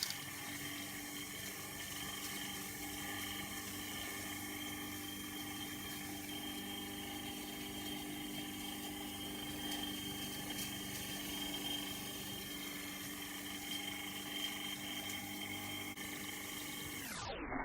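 Saito Heron's ball steam engine (aeolipile) running: a steady whir with several fixed tones over hiss, with light mechanical rattling and the bubbling of the boiling water.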